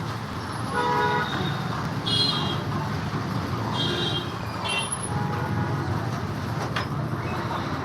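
Street traffic rumbling, with several short vehicle-horn toots, the first about a second in.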